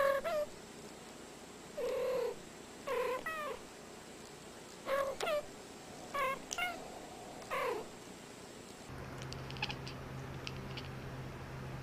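Domestic cat mewing in short calls, about ten over the first eight seconds, often in pairs. Near the end the mews stop and a low steady hum is left.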